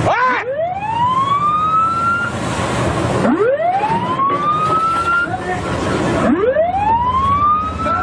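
Ship's siren winding up repeatedly, each wail rising from low to high over about two seconds and cutting off, three times about three seconds apart. Under it is a steady rush of water and wind from the bow wash in heavy sea.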